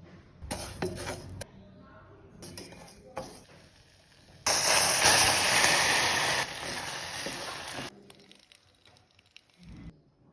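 Kitchen cooking sounds: utensils and dishes clinking a few times, then a loud hiss about four and a half seconds in that steps down after two seconds and cuts off a second and a half later.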